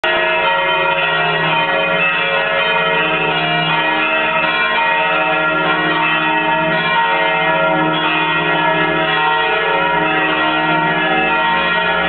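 Full peal of a parish church's bells, several bells ringing together, their overlapping tones sounding without a break.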